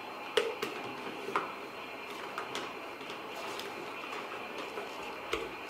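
A handful of light, irregular clicks and knocks from equipment being handled, likely the air fan being set in place on the machine, over a steady faint hiss.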